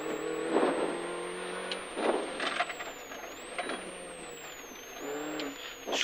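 Engine of a Mini rally car, heard from inside the cabin, holding a fairly steady note, with a few knocks from the car running over the stage surface.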